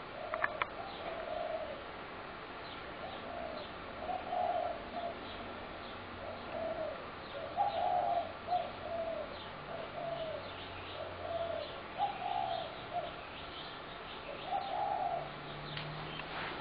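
Spotted doves cooing, a steady run of repeated coo phrases with short gaps between them, and faint small-bird chirps behind. A couple of sharp clicks sound about half a second in.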